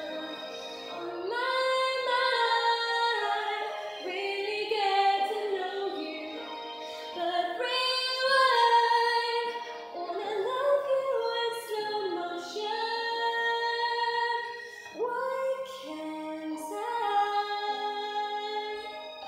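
A woman singing a slow solo song in phrases, holding and gliding between notes, over a sustained instrumental accompaniment.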